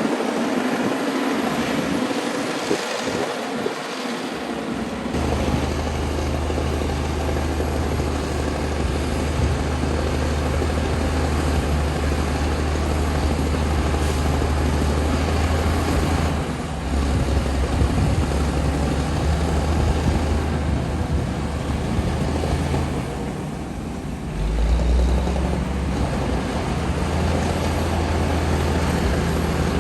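Komatsu D60P crawler bulldozer's diesel engine running steadily under working load, with a low drone that changes note a couple of times.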